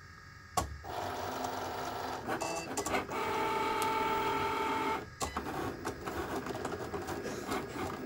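Cricut Explore Air 2 cutting machine starting a cut on glitter cardstock. A click comes about half a second in, then its motors whir with a steady whine as the carriage and mat move. About five seconds in this changes to quicker, uneven whirring as it cuts.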